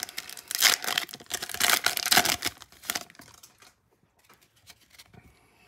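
Foil wrapper of an NBA Hoops trading-card pack crinkling and tearing as it is ripped open: a dense run of crackles for about three seconds that then dies away.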